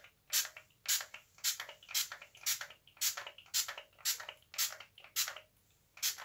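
Pump spray bottle of Toppik fibre holding spray misting onto the hair: a quick run of short hisses, one with each pump, about two a second and about a dozen in a row.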